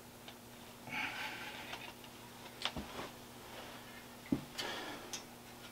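Faint handling noises as metal speaker stands are moved and set in place on carpet: a few scattered light knocks and clicks with brief rustling, over a faint steady hum.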